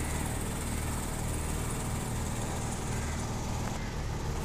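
The engine of a small motorboat running steadily, a low, even hum under a constant hiss.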